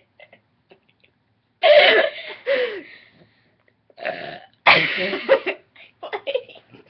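A few short, loud human burps in quick succession, small 'starter burps' from someone straining to bring up one big burp.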